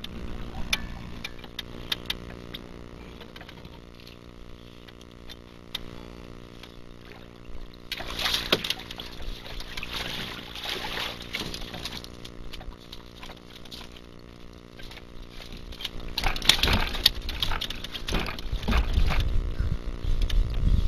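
Water splashing and sloshing in two spells, about eight seconds in and again near the end, as a hooked channel catfish thrashes at the surface on a yo-yo line. Light clicks come before the first spell.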